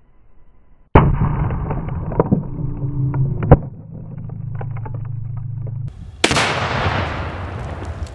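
Two blasts of a one-pound homemade Tannerite charge: the first about a second in, muffled and dull with a few sharp cracks and rattles after it, the second about six seconds in, sharper and fuller, dying away slowly.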